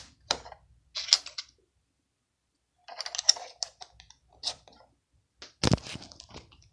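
Plastic Lego bricks clicking and rattling as they are picked up and pressed together, in two bursts of small clicks with a pause between, and one louder knock about five and a half seconds in.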